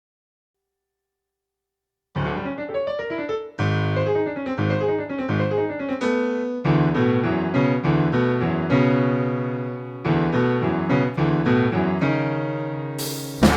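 Solo jazz piano comes in about two seconds in, playing phrases of struck chords. Just before the end the rest of the big band enters with a sudden, bright burst.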